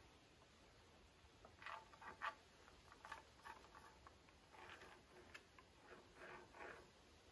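Faint, scattered scraping and light knocks of hands and a tool working on a wooden handle blank, in several short clusters.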